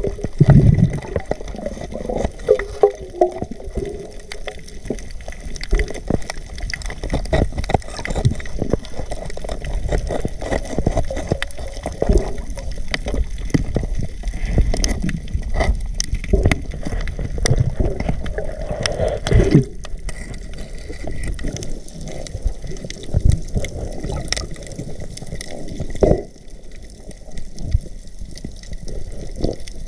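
Water gurgling and sloshing, heard through a submerged action camera during spearfishing, with many short clicks and knocks.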